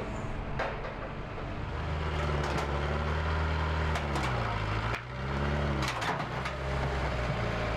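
A vehicle engine running and then revving harder about two seconds in, its pitch dipping and rising several times, with scattered sharp knocks and clatter.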